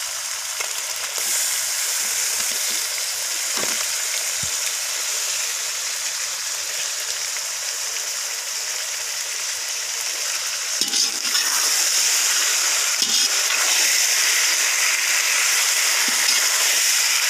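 Onions, green chillies and fresh tomato slices sizzling steadily in hot oil in an iron kadai, with a few scrapes and knocks of a slotted steel spatula as the pan is stirred. The sizzle grows louder about two-thirds of the way through.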